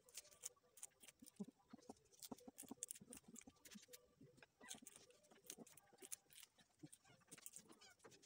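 Faint, scattered clicks and crackles of fingers picking bee larvae out of the comb's cells, one by one.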